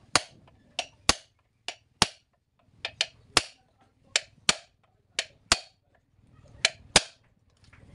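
Hammer blows on a homemade rivet punch, setting the rivets that fasten a new lining to a truck's drum-brake shoe. About fourteen sharp metal strikes come in an uneven rhythm, many in quick pairs.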